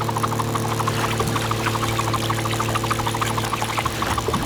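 Animated-show machine sound effect: a steady mechanical hum with a fast, even rattle of ticks over it.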